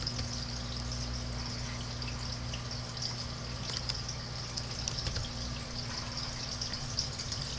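Steady room tone of a screen-recording microphone: a low electrical hum under an even hiss, with a few faint clicks.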